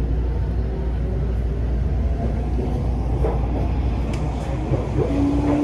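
Steady low rumble of an electric commuter train running, heard from inside the passenger car as it pulls into a station. A single whine begins near the end and slowly rises in pitch.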